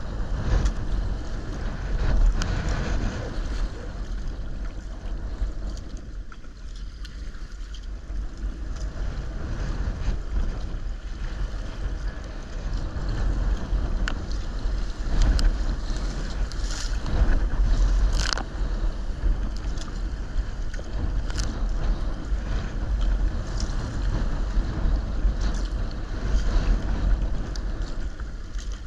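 Wind rumbling on the microphone over choppy sea water splashing around a paddled sea kayak, with a few sharper splashes from the paddle blades, mostly in the second half.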